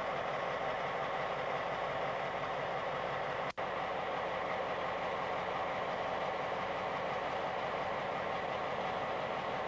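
Engine idling steadily. The sound drops out for an instant about three and a half seconds in.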